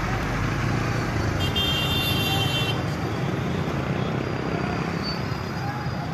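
Steady street traffic noise, with a high-pitched tone lasting about a second and a half starting about a second and a half in.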